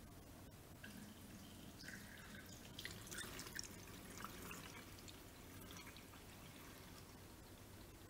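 Water poured from a plastic bottle trickling faintly through a plastic funnel into a fridge's water tank, with scattered small drips and splashes.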